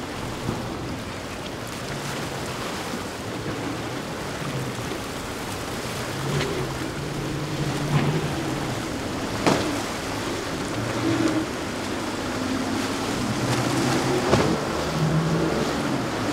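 Twin outboard engines of a Fountain 31 center-console boat running through rough inlet waves, their hum shifting in pitch over a steady hiss of spray and surf, with a few sharp slaps as the hull hits waves. The sound grows louder near the end.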